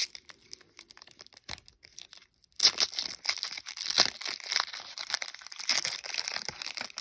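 Trading cards being handled and flipped through by hand: quick rustling, clicking and crinkling of card stock and packaging, with a short pause about two seconds in, then busier crinkling.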